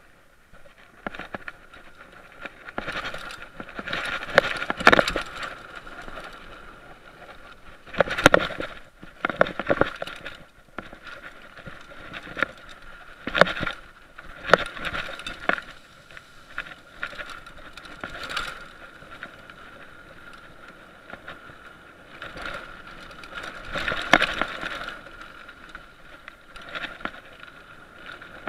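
Mountain bike rolling fast down a dirt trail, its frame and parts rattling steadily with repeated sharp clattering knocks as it goes over bumps.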